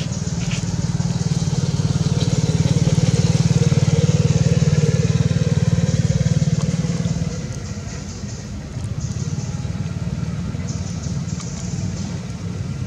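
An engine running steadily with a low pulsing hum. It is loudest for the first seven seconds, then drops a little and carries on more quietly.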